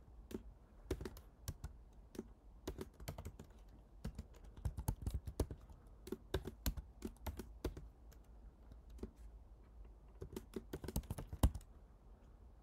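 Typing on a computer keyboard: quick runs of key clicks in irregular bursts, with short pauses between words of code.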